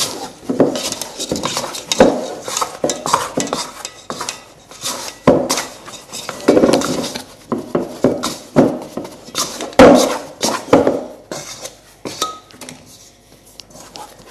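Dough scraper scraping and knocking against a stainless steel mixing bowl as soft bread dough is worked with a little flour into a ball: irregular scrapes and metallic knocks, the loudest about ten seconds in.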